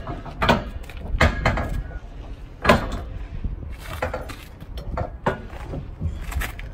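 Steel trailer-hitch hardware being handled: a series of sharp metal clanks and clinks, about eight spread unevenly over the span, as parts of a weight-distribution hitch are knocked and set in place.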